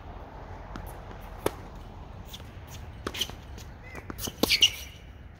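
Tennis balls being hit and bouncing on a court: scattered sharp knocks, one about a second and a half in and a few around three seconds, then a louder cluster with a short squeak near the end.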